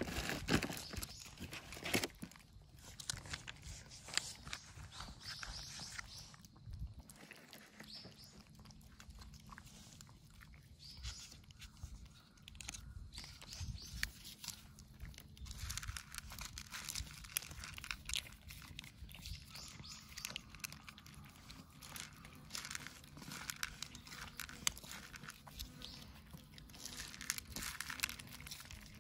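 Cats eating close up, crunching dry kibble and chewing in a run of irregular small crunches and clicks.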